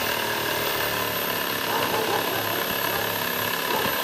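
Electric power saw running steadily as it cuts into a small tree trunk, with a constant high-pitched motor whine over the cutting noise.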